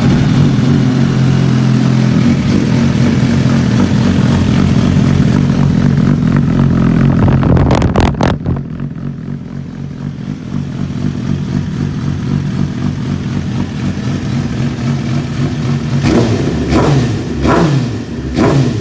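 Suzuki GSX-R1000 inline-four running through an aftermarket MG Escapes exhaust, idling just after starting. It takes a sharp rev about eight seconds in, then settles to a quieter idle and is blipped several times near the end.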